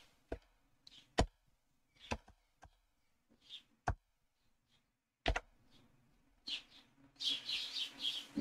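Computer keyboard being typed on sparsely: single separate key clicks a second or so apart, then a busier stretch of soft clicking and noise near the end.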